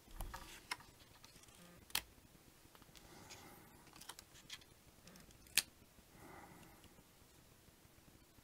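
Faint handling of paper number cards being set onto a paper place-value chart: soft rustling with a few sharp taps, the loudest just past halfway.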